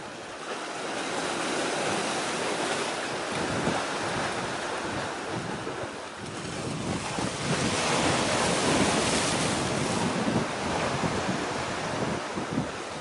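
Sea waves washing in, swelling twice, with wind buffeting the microphone.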